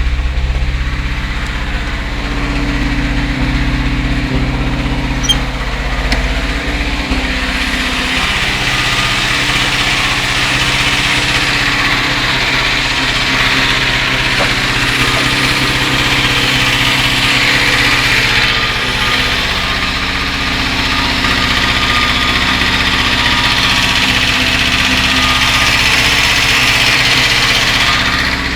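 UZAM-412 four-cylinder engine running, with the knock that is its fault; its note shifts about a quarter of the way in.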